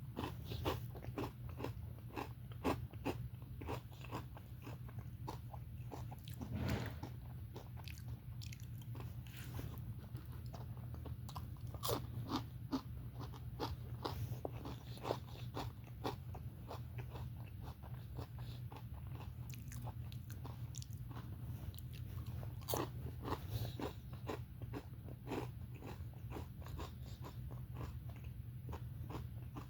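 Close-up chewing and crunching of crispy, well-done fried potato pieces: many irregular crunches and mouth clicks over a steady low hum.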